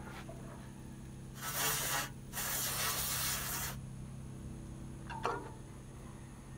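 Aerosol electrical contact cleaner sprayed through its straw in two hissing bursts, a short one and then a longer one of about a second and a half, blasting dirt off a hydraulic hose fitting. A light click follows near the end.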